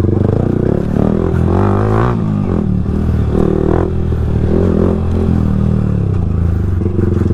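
Motorcycle engine running under load on a rough dirt trail, its pitch rising and falling with the throttle.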